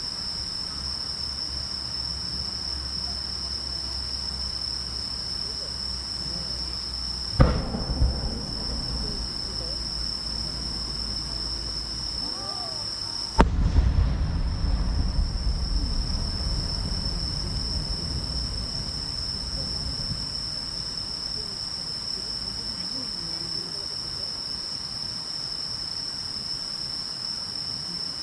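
Large aerial firework shells (30 cm shakudama) going off: a sharp bang about seven seconds in, then a louder boom about six seconds later that rumbles on for several seconds. A steady high chirring of crickets runs underneath.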